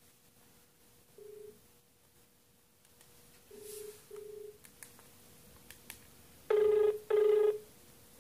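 Ringback tone of an outgoing phone call heard from a mobile phone while it waits for the other end to answer. A few faint short beeps come first, then about six and a half seconds in a loud double ring: two short pulses of a low tone in quick succession.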